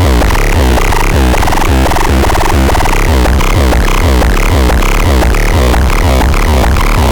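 Electronic synthesizer music: a loud, dense patch with a pulsing deep bass and rapid, repeated sweeping synth notes over a noisy, harsh texture.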